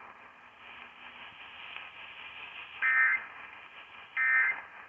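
Weather radio static hiss, then two short, loud digital data-burst screeches about a second and a half apart: the Emergency Alert System end-of-message tones that close a warning broadcast.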